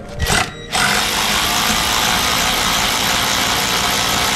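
A short burst from a handheld cordless power tool, then, about three quarters of a second in, a steady machine hum and hiss starts abruptly and runs on at an even level.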